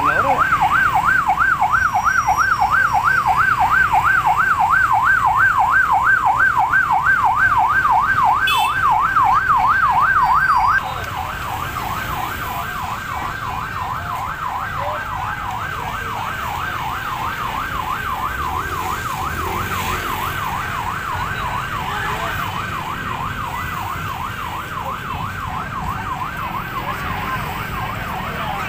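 Police car siren in a fast wail, its pitch sweeping up and down several times a second. About eleven seconds in it suddenly drops to a lower level and goes on more faintly, over a low hum of crowd and traffic.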